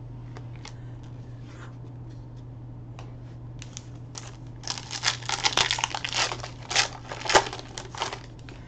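Foil wrapper of a Donruss Optic trading-card pack crinkling as it is handled and torn open, with one sharp snap near the end. In the first half, a few light clicks of cards being shuffled.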